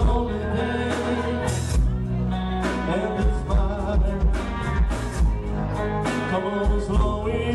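Live rock band playing with a singer: a steady drum beat over bass and guitar, with sung vocal lines.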